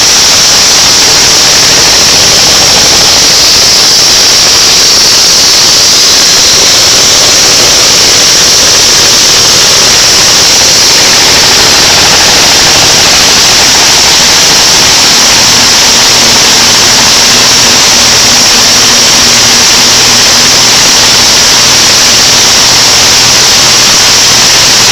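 Plastic drying machine's high-pressure blower running: a loud, steady rushing noise with a strong hiss.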